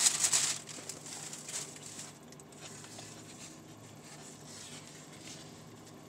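Paper rustling and crinkling for about half a second, then quiet eating: faint clicks and chewing over the steady low hum of the car's air conditioner.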